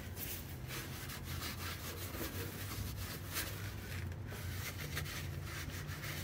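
Paper towel rubbed and wiped over the oily metal underside of a car by a gloved hand, an uneven scuffing that comes and goes.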